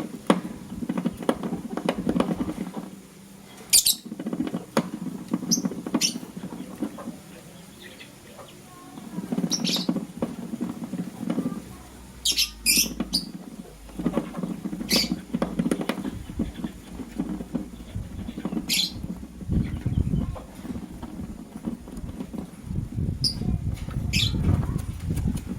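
Lovebirds pecking and nibbling at vegetables, a rapid crunching, scratching patter that comes in stretches with short pauses. Short, sharp high chirps cut in about ten times.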